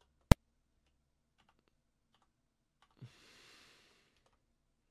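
Computer keyboard being typed on: one sharp, loud key click near the start, then scattered faint key taps. About three seconds in there is a short rush of breath-like noise.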